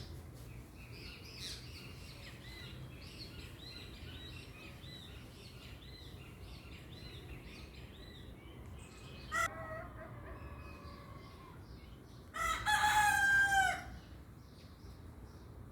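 A rooster crowing: a short crow about nine seconds in, then a louder, longer one that falls in pitch at its end. Small birds chirp steadily underneath.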